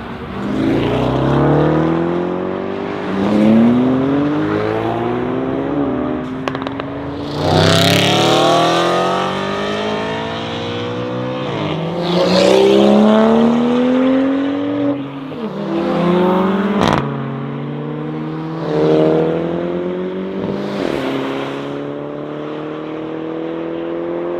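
ABT Audi RSQ8-R's 4.0-litre twin-turbo V8 accelerating hard in a series of pulls, the engine note climbing in pitch and dropping back again and again as it revs up through the gears. One sharp crack comes about two-thirds of the way through, and near the end the note settles into a steadier, slowly rising run.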